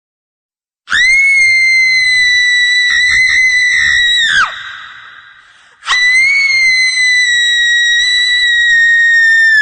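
Two long, very high-pitched screams as a horror sound effect, each held at a steady pitch for about three and a half seconds before dropping away at the end. The first starts about a second in, after silence, and the second about six seconds in.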